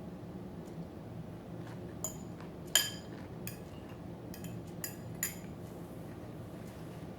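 Cutlery clinking against a dinner plate about six times, short sharp ringing clinks with the loudest about three seconds in, over a faint steady low hum.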